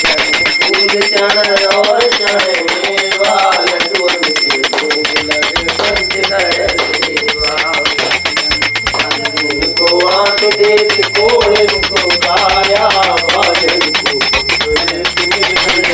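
A small brass puja hand bell rung rapidly and without a break, its ringing tone holding steady, over voices singing an aarti.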